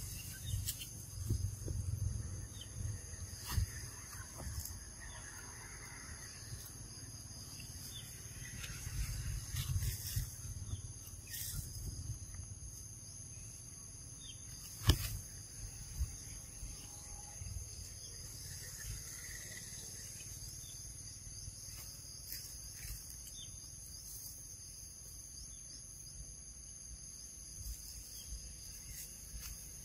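Outdoor forest ambience: insects buzzing steadily at a high pitch throughout, with low rumbles now and then and one sharp click about halfway through.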